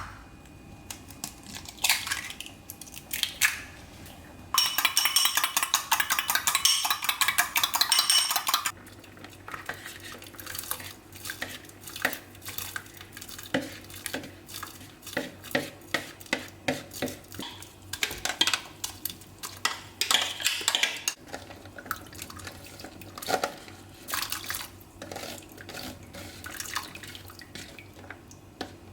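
Kitchen utensils clinking against dishes and cookware, with a few seconds of fast continuous rattling a few seconds in, then a run of separate clinks about once or twice a second.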